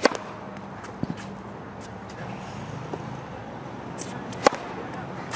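Two tennis serves: the racket strikes the ball sharply right at the start and again about four and a half seconds in. A fainter knock comes about a second in, with faint clicks between.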